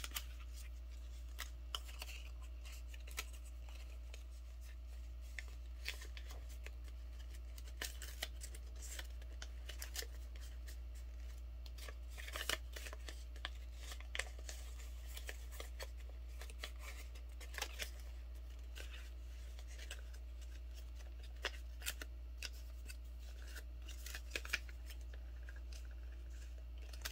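Paper crinkling and crackling as a sheet of printer paper is folded and creased by hand into a paper airplane, in short irregular crackles. A steady low hum runs underneath.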